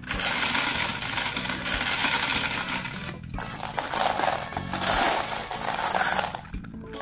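Many glass marbles clattering and rattling through a plastic Bruder toy cement mixer truck's hopper and drum, in a dense rush of clicks that breaks off briefly about three seconds in and dies down near the end, over background music.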